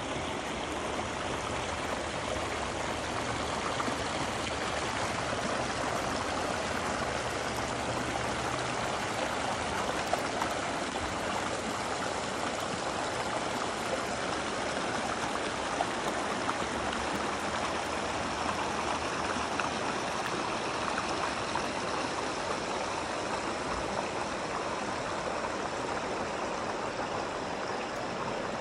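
Shallow river running over rocks and through riffles: a steady rushing and babbling of water.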